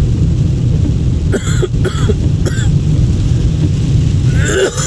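A man coughing: three short coughs about a second and a half in, then a quicker run of coughs near the end. Under it runs the steady low rumble of road and rain noise inside a moving car.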